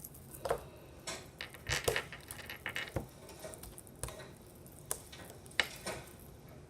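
Homemade slime being worked by hand: about a dozen short, irregular sticky clicks and squelches.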